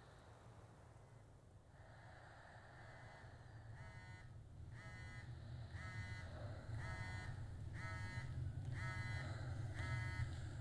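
Low rumbling drone slowly growing louder. From about four seconds in, a short pulsed call or tone repeats about once a second, seven times.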